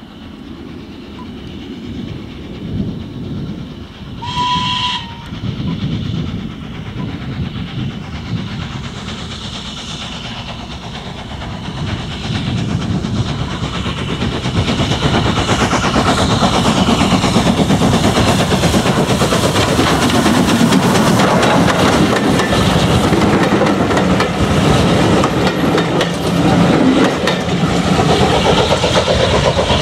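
LSWR M7 class 0-4-4 tank steam locomotive working a train, its exhaust beating as it approaches, with a short whistle about four seconds in. The sound grows much louder from about a third of the way through as the engine and its coaches pass close by, wheels clattering over the rail joints.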